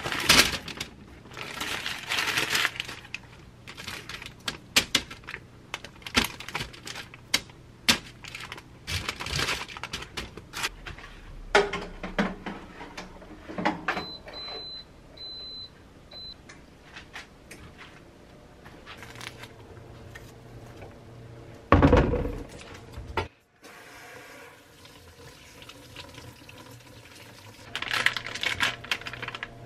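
Kitchen handling sounds: parchment paper crinkling as it is fitted into a wire air-fryer basket, then four short high beeps from a Zolele air fryer oven's touch panel as it is set to 180 degrees for ten minutes. A loud knock comes about two-thirds of the way through, and water runs into the sink near the end.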